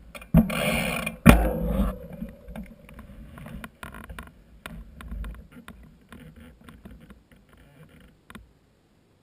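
Handling noise on a GoPro housing mounted on a bike's handlebar: a loud rubbing rush with a sharp knock about a second in, then scattered clicks and ticks that die away to near silence near the end.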